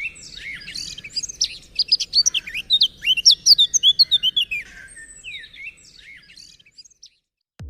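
Birds chirping, with many quick, sharp calls that come thickest and loudest in the middle, thinning out and stopping shortly before the end.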